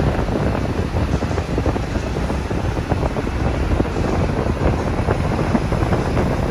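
Alexander Dennis Enviro 500 MMC double-decker bus with a Cummins diesel engine pulling slowly past: a steady, dense low engine rumble.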